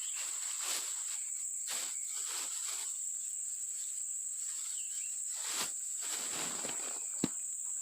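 Insects chirring steadily at a high pitch, with a few soft rustles and one sharp click about seven seconds in.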